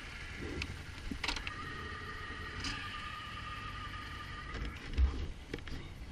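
ATV engine running, with a steady whine over it for a few seconds and a loud thump about five seconds in.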